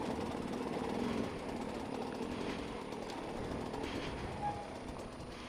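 Dirt bike engine running at low revs, a steady rapid putter as the bike creeps over rough lava rock.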